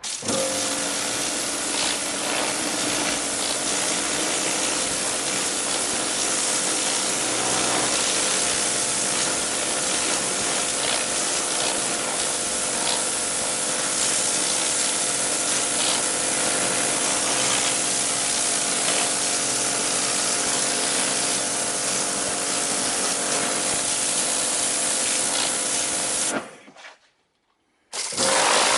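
Karcher K7 Full Control electric pressure washer running: a steady motor and pump hum under the hiss of the water jet spraying the driveway. It cuts off about 26 seconds in, then gives one short burst near the end.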